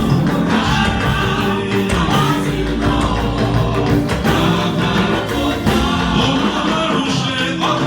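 A choir singing a gospel anthem over a loud band accompaniment with a strong bass line.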